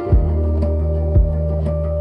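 Instrumental pop music: guitar and held synth tones over a sustained bass, with a deep kick drum about once a second and no singing.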